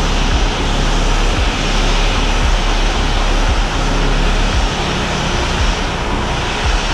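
Jet engine noise from a Boeing 737-800 with CFM56-7B turbofans, a steady, loud, even rush at a constant level, with irregular low thumps underneath.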